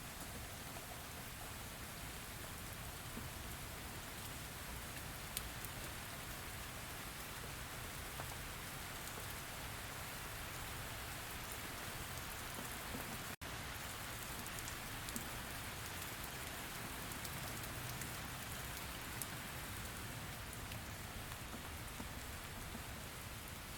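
Steady rain falling, a constant hiss with scattered sharper drop ticks. The sound cuts out for an instant about halfway through, then resumes.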